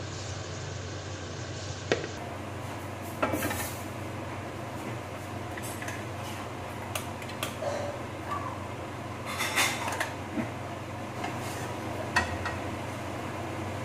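Kitchen clatter: scattered clinks and knocks of cookware and utensils being handled at the stove, a short rattle about three seconds in and a cluster of clinks near ten seconds, over a steady low hum.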